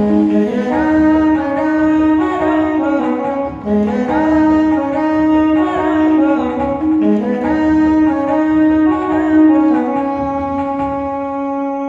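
Bhajan music played on a Casio electronic keyboard: a wavering, reedy, saxophone-like melody over held chords, settling into a long held chord for the last two seconds.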